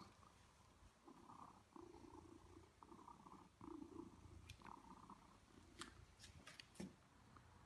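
Domestic cat purring faintly in pulsing breaths while being petted on its belly, followed near the end by a few short clicks.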